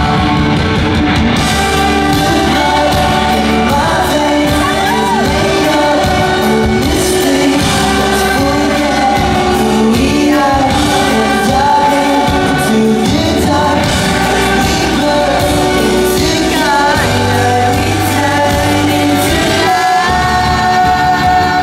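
Live rock band playing loud in a concert hall, heard from the audience: a male voice sings over electric guitar, bass guitar and drums.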